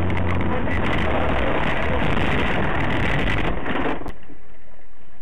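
Loud, steady rushing noise of a moving vehicle, with a low hum at the start; the noise thins out about four seconds in.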